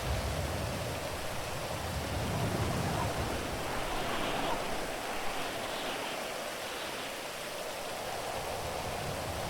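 Steady rain falling, an even hiss, with a low rumble over the first few seconds that dies away.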